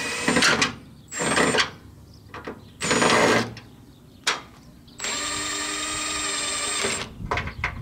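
Milwaukee cordless impact driver unfastening bolts: three short bursts, then a steady run of about two seconds with a high whine.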